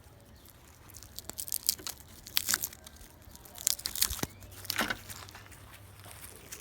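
Packaging being pulled off by hand, with irregular tearing and crinkling crackles.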